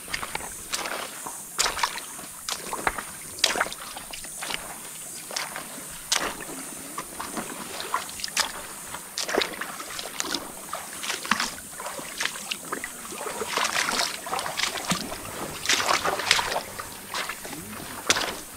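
River water splashing and sloshing, with many short, irregular splashes over a steady hiss of moving water.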